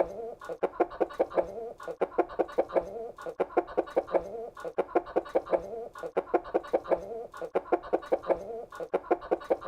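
Chickens clucking, a quick run of short, sharp calls several a second, going on without a break.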